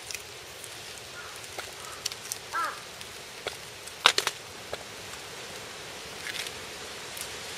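Lone Wolf Harsey T2 Ranger hunting knife cutting meat from a deer carcass: scattered soft clicks and ticks of the blade, one sharp click about four seconds in, and a brief squeak a little before it.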